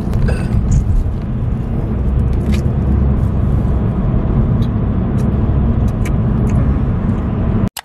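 Steady low road and engine rumble heard inside the cabin of a moving car, with a few faint clicks over it. It cuts off abruptly near the end.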